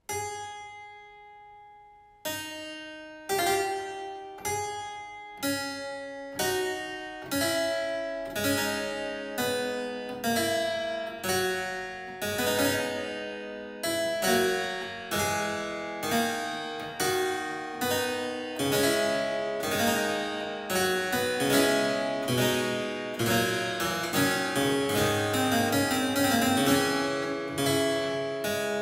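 Solo harpsichord beginning a slow piece: an opening chord left to ring for about two seconds, then notes and chords plucked roughly once a second, the playing growing fuller toward the end.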